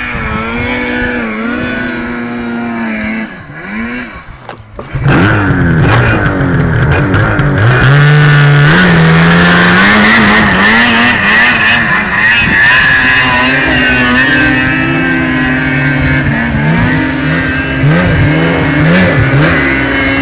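Two-stroke 800 snowmobile engines with an SLP aftermarket head and pipe revving. First a more distant sled runs at fairly steady revs as it climbs the snowy slope. Then, about five seconds in, a much louder sled close by revs hard, its pitch stepping up and down.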